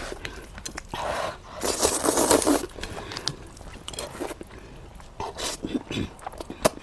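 Close-miked eating: two noisy bites about one and two seconds in, followed by chewing and small sharp clicks.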